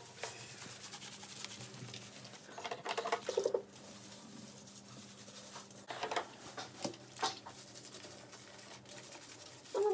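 Wet hands rubbing and squelching shampoo lather into a West Highland white terrier's soaked coat.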